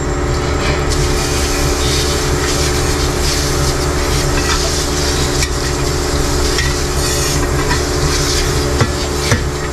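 Water spraying from a sink's pull-out sprayer onto a plastic condenser fan blade being washed in a utility sink, a steady splashing hiss with light knocks as the blade is handled. A steady low machine hum runs underneath.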